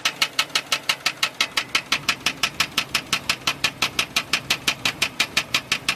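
2003 Chevy Silverado V8 idling with a loud, sharp, rapid ticking, about seven ticks a second. The owner suspects a bent pushrod, a sticking exhaust valve or a bad lifter, and the engine idles with a really bad shake.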